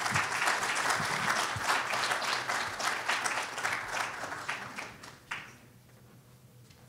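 Audience applauding, the clapping dying away about five and a half seconds in.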